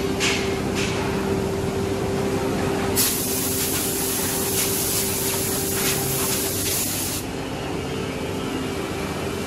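Woodmaster WM-4X4CNC four-axis CNC wood router running with a steady hum, and from about three seconds in a compressed-air blow gun hissing for about four seconds as it blasts sawdust off the freshly carved chair parts, then stopping.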